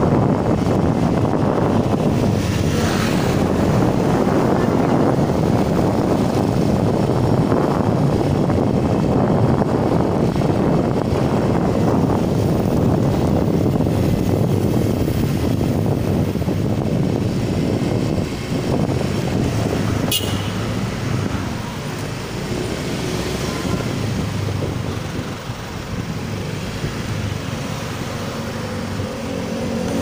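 Wind noise buffeting a motorcycle rider's headset microphone while riding in traffic: a loud, steady rumble. It eases somewhat after about eighteen seconds. There is a single sharp click about twenty seconds in.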